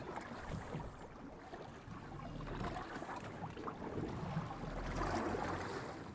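Sea water sloshing and splashing against a boat's hull, rising and falling unevenly, loudest about five seconds in.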